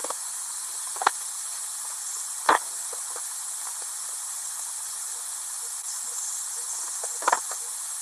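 Steady VHS-style static hiss, with short sharp clicks about a second in, about two and a half seconds in, and again about seven seconds in.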